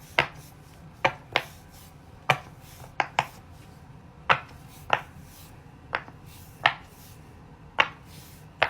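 Silicone Pop It fidget toy bubbles being pressed through, one short pop at a time, about a dozen pops at uneven gaps, sometimes two in quick succession, as two players take turns.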